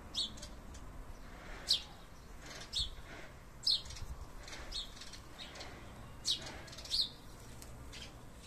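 A songbird chirping: about six short, high, falling chirps at irregular intervals over faint outdoor background noise.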